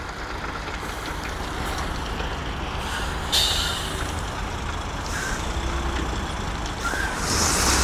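Heavy truck's engine running steadily, heard from inside the cab, with a short hiss of air from the air brakes about three seconds in and a longer hiss near the end.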